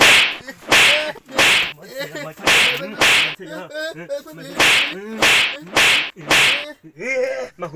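A run of about nine sharp swishing strokes, each under half a second, coming roughly once or twice a second.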